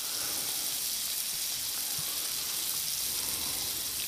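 Ribeye steak sizzling steadily in bacon grease on a hot Blackstone flat-top griddle.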